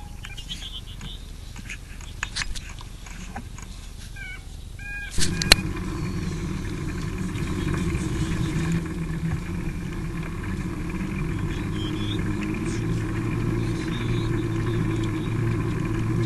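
Riding noise from a bike-mounted camera rolling along a paved road: wind on the microphone and tyres running on the pavement in a steady rumble. It starts suddenly about five seconds in, after a few short high-pitched calls and clicks.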